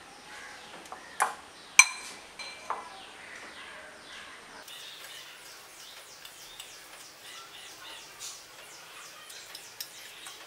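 A metal fork and spoon clink sharply against a ceramic plate a few times in the first three seconds while banana slices are pressed into bread crumbs. The loudest clink comes about two seconds in. Through the second half there is faint, rapid, high chirping in the background.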